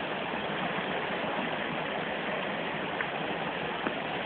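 Steady rush of a mountain river flowing over rocks, with a couple of faint ticks about three seconds in.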